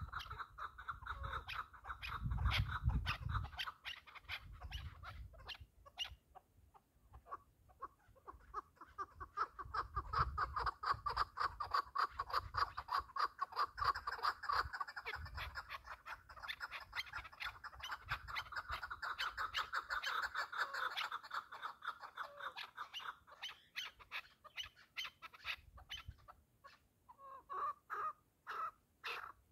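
Partridge calling: a long, rapid run of short repeated notes that thins out for a couple of seconds about six seconds in, then ends with a few separate louder notes.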